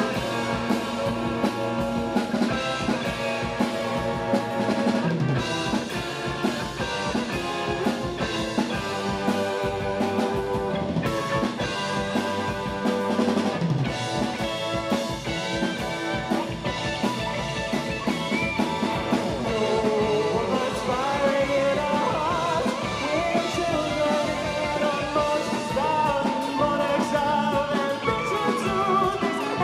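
Prog rock band playing live on keyboard, bass guitar, electric guitar and drum kit. A man's singing voice comes in a little past the middle and carries on over the band.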